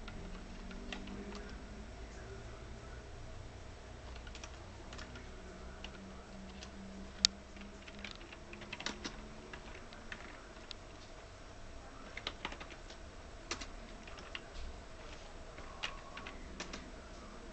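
Keystrokes on a computer keyboard as a command is typed at a DOS prompt: irregular clicks in short runs, one sharper and louder a few seconds in, over a steady low hum.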